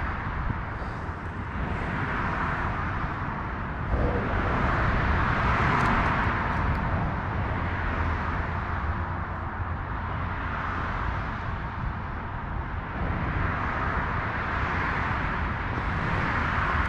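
Autobahn traffic passing over a bridge: a steady hiss of tyres that swells and fades every few seconds as vehicles go by, over a low rumble.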